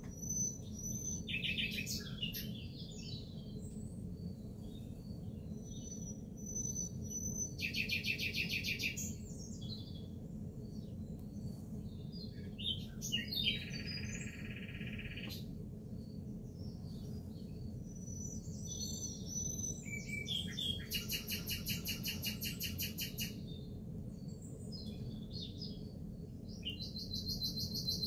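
Songbirds singing: short high whistled notes and several rapid trills, some a few seconds long, over a steady low hum.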